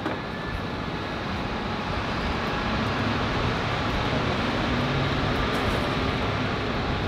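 Steady rumbling background noise, like traffic or a running engine, growing slightly louder over the first few seconds.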